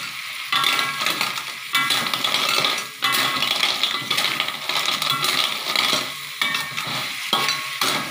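Blood cockles in their shells being stir-fried in a wok in spice paste: a steady sizzle, with repeated strokes of the spatula scraping the pan and the shells clattering.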